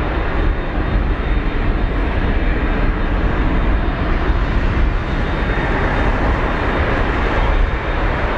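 Airbus A330-300's Rolls-Royce Trent 700 jet engines at takeoff power as the airliner departs: a loud, steady jet roar with a thin high whine running through it.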